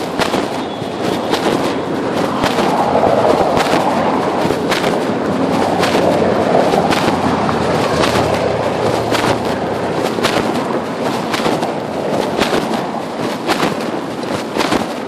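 Phone microphone rubbing against the cloth of a pocket while the wearer walks: a continuous scraping rustle broken by irregular clicks and knocks.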